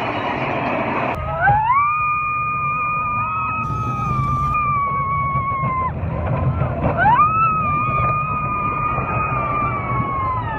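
A girl screaming on the Big Thunder Mountain Railroad coaster: two long, held, high-pitched screams. The first starts about a second in, after a rush of noise cuts off. The second comes a second or so after the first ends. The coaster train rumbles low and steadily underneath.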